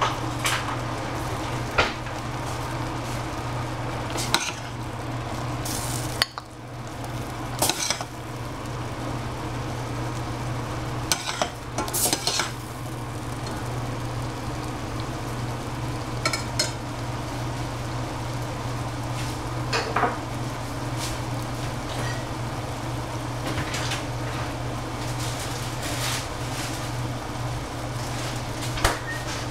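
A metal ladle clinking and scraping against a stainless-steel saucepan as tomato-and-egg mixture is scooped out, with about a dozen irregular clanks. Under it runs the sizzle of the simmering liquid and a steady low hum.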